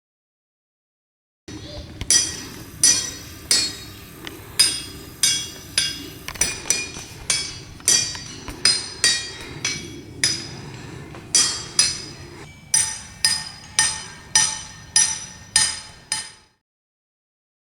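A hammer striking the ringing rocks, diabase boulders that ring like metal, in a quick series of strikes about two a second. Each strike gives a sharp clink followed by a short bell-like ring. The ringing pitch changes partway through as a different spot or boulder is struck.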